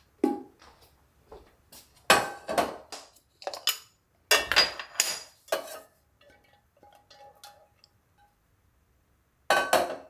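Dishes and containers clinking and knocking together as they are handled, in several bursts of sharp clinks. A faint ringing tone follows about two-thirds of the way through.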